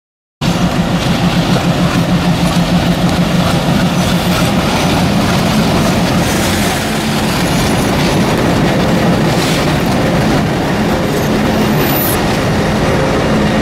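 Motorised toy train set running on plastic track, starting about half a second in: a steady motor hum with the wheels and coaches rattling along the track, pulsing quickly for the first few seconds.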